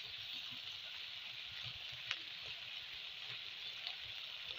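Thick curry sizzling in a dark wok as it is stirred with a spatula, a steady quiet hiss with one light click about two seconds in.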